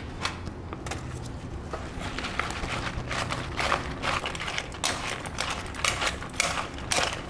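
Fried chicken wings being tossed in a bowl of melted butter and hot sauce: irregular clicking, tapping and wet rustling, getting busier after a couple of seconds.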